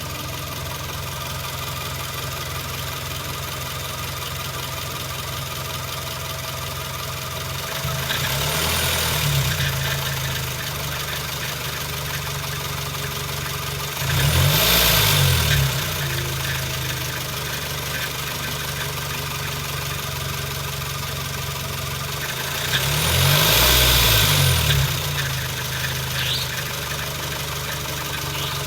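Suzuki J20A 2.0-litre four-cylinder engine idling steadily, with the revs raised and let fall three times. It carries an unidentified noise that shows up only sometimes at idle and remains with the drive belt removed and new tensioner and idler pulleys fitted, so the owner has ruled out the belt and pulleys.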